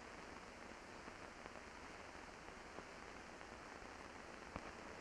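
Near silence: the steady hiss of an old film soundtrack, with a couple of faint clicks near the end.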